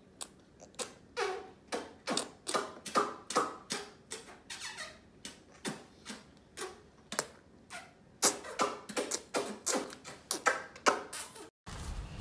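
A baby making short, squeaky mouth noises, about two a second with a brief pause in the middle, stopping suddenly near the end.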